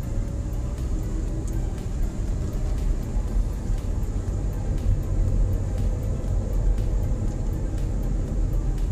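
A car driving along, with a steady low rumble of engine and road noise.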